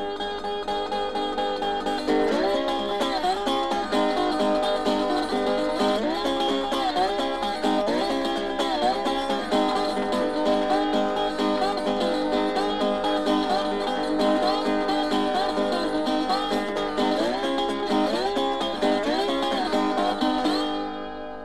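Plucked acoustic guitar music with notes that glide in pitch. It begins to fade out near the end.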